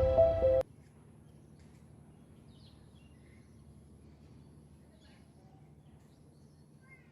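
Background music cuts off abruptly about half a second in. After it comes quiet outdoor ambience with a few faint, scattered bird chirps.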